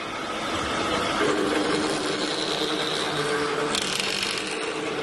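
L355CNC servo automatic pipe cutting machine running, its circular saw blade cutting stainless steel tube: a steady mechanical running sound with a few held tones. It turns brighter and harsher about four seconds in.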